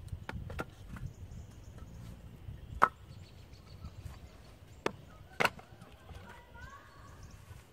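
Split firewood pieces knocking against each other and the wooden jig as they are stacked into it: a few sharp wooden clacks, the loudest about three seconds in and two more around five seconds.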